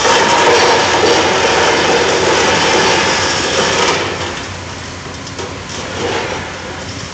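A motorcycle engine running close by for about the first four seconds, then fading away, leaving lower, steady engine noise.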